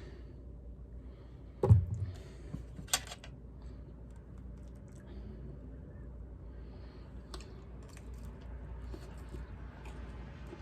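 Quiet mealtime table sounds: a dull knock about two seconds in, a sharp click a second later, then faint scattered clicks of tableware and eating.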